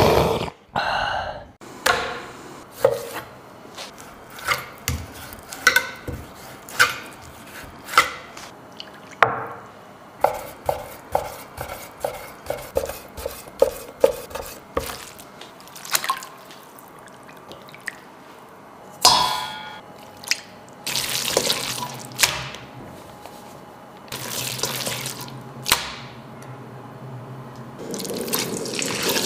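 Kitchen knife slicing raw pork into thin strips on a wooden chopping board, the blade knocking the board in a steady run of about two to three strokes a second. Slower single knocks come before it, and longer stretches of rushing hiss come near the end.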